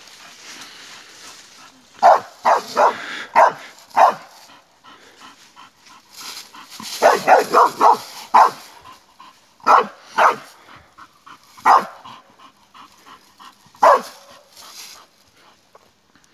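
Bull terrier barking in short, sharp volleys, about a dozen barks in groups of two to five with quieter gaps between.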